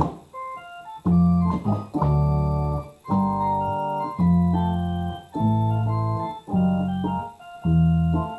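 Yamaha electric organ playing held chords over sustained bass notes, changing chord about once a second with short breaks between, after a thinner, quieter first second.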